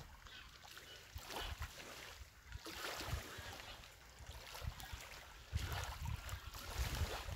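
Faint sounds of a person moving through a slow standing arm exercise: a few soft swells of rustling noise with dull low thumps under them.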